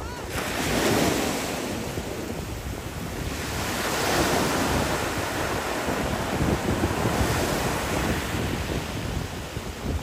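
Ocean surf breaking over reef rocks and washing into a rocky cove: a steady wash of noise that swells about a second in and again around four seconds in.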